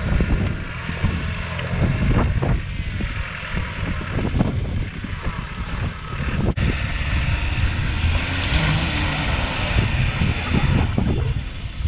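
Wind buffeting the microphone over the engines of Land Rover Defenders working as one tows another out of deep mud on a recovery strap. About two-thirds of the way through the sound cuts abruptly and a brighter hiss is stronger after it.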